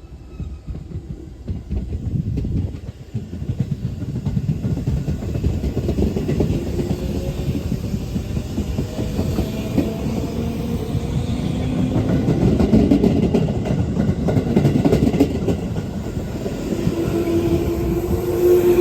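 JR East 205 series electric multiple unit running and growing louder, its wheels clattering over rail joints, with whining tones rising in pitch in the second half. This set is running in service with an abnormal noise.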